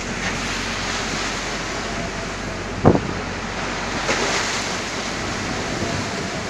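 Strong wind blowing across the microphone over rough sea, waves breaking and washing against the boat's hull, with a brighter rush of spray about four seconds in. A single sharp knock comes near three seconds in.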